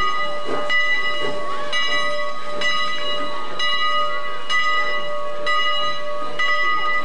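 Locomotive bell ringing steadily, struck about once a second, with its ring carrying on between strikes.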